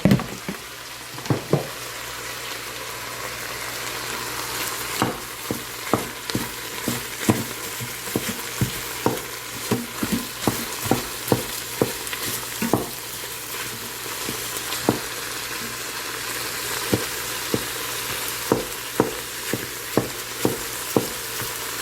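Meat sizzling in an Instant Pot set to sauté, while a utensil stirs and mashes it, knocking and scraping against the pot. The knocks come in quick runs from about five seconds in, pause for a few seconds, then return.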